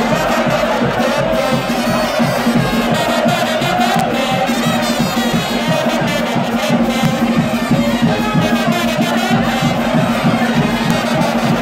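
A charanga, a Spanish fiesta brass band of trumpets, trombones and drums, playing a lively dance tune with a steady beat.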